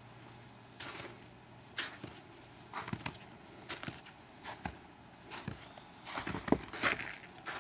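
Footsteps crunching in snow on a snow-covered wooden deck, about one step a second, the loudest few near the end.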